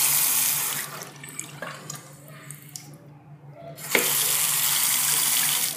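Bathroom sink faucet running water into the basin in two spells. The first stops about a second in, and the second starts with a sharp click near four seconds and stops near the end.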